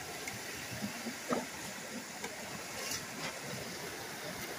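Steady rush of water flowing through a culvert partly clogged by a beaver dam, with a few faint clicks and rustles of rebar poking among the dam's sticks.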